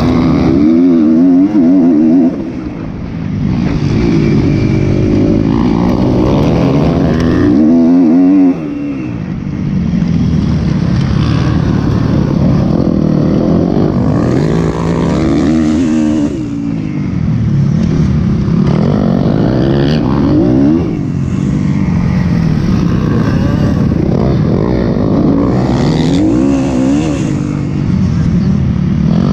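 2012 Kawasaki KX250F's four-stroke single-cylinder engine heard on board while riding a motocross track, the engine note repeatedly rising and falling as the throttle opens and shuts through the gears, with short drops when the rider backs off about two and eight seconds in.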